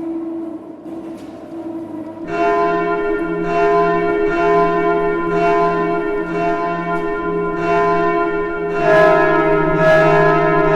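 Church bells ringing. A single bell's tone lingers at first, then from about two seconds in a peal of several bells strikes one after another, growing louder and fuller with more bells near the end.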